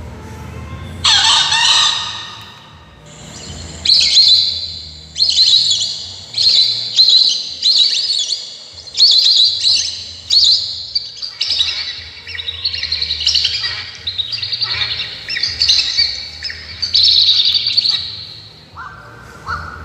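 Recorded birdsong played loud through a bird-caller MP3 speaker: a run of chirping phrases, roughly one a second, starting about a second in.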